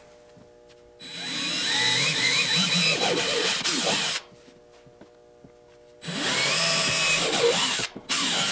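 Cordless drill boring pilot holes into a boat's fiberglass deck, in two runs of about three seconds each: the first starts about a second in, the second about two seconds after the first stops, with a brief break near the end.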